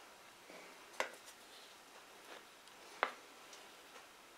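Wooden spatula scraping and knocking against the neck of a large plastic jar as thick, partly set honey is pushed out into a plastic tub: faint scraping with a few small clicks, the two sharpest about a second in and about three seconds in.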